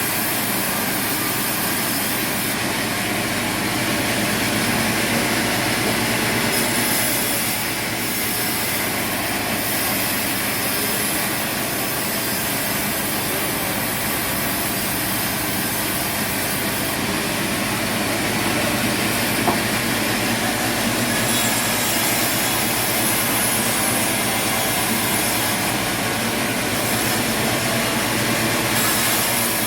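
Sawmill running steadily: a loud, continuous machine noise of engine and saw, with one small click about twenty seconds in.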